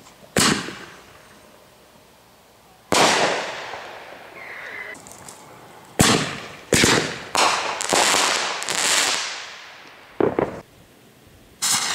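Consumer artillery-shell fireworks going off: sharp bangs with long fading tails, a big one about three seconds in and a quick run of several bangs between about six and nine seconds in.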